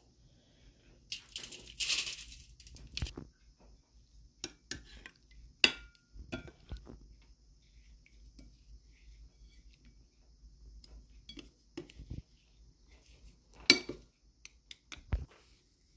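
Kitchen food-prep handling: scattered light clinks and knocks of a bowl and a foil-lined cookie sheet as chicken breasts are coated in dry rub and laid on the pan. There is a short rustle about a second in and a few sharper clinks later on.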